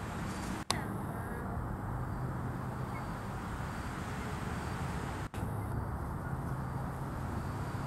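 Steady outdoor background rumble and hiss with a faint low hum, cutting out for an instant twice, about a second in and about five seconds in.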